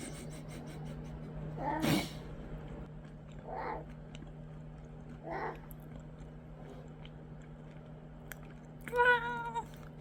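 A 15-month-old baby sneezes sharply about two seconds in, followed by two softer short sounds, then makes a brief high vocal sound near the end. A steady low hum runs underneath.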